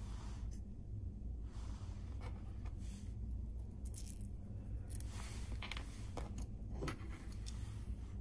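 Small 3D-printed plastic parts and steel digital calipers being handled: scattered light clicks and brief scrapes, with the calipers closed on a small pin near the end, over a steady low hum.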